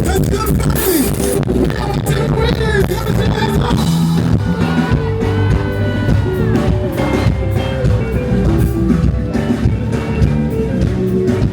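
Loud music with a steady beat, guitar and some singing.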